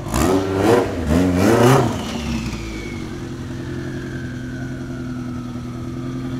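Turbocharged Honda K-series engine swapped into a Honda NSX, revved in two quick blips and then settling to a steady idle. A high whine slowly falls in pitch as it idles.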